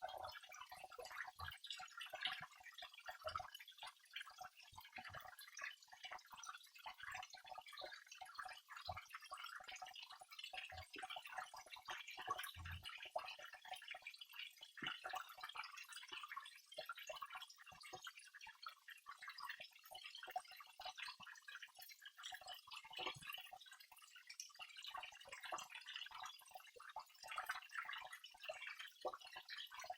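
Waterfall: water falling and splashing in a continuous patter of many small splashes and drips.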